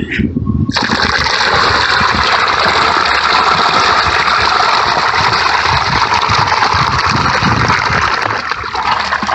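Water with carp fry gushing out of a tipped metal milk churn into shallow pond water, starting abruptly just under a second in and tailing off near the end.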